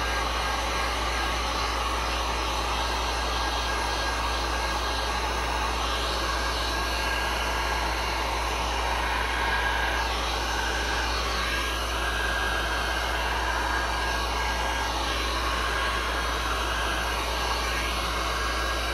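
Heat gun running steadily, a continuous blowing of hot air over freshly poured epoxy resin to pop surface bubbles.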